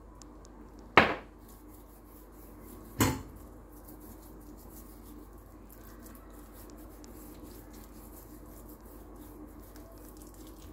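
Two sharp knocks on a wooden cutting board, about two seconds apart, the first louder, while raw chicken is being seasoned; otherwise only a low steady background hum.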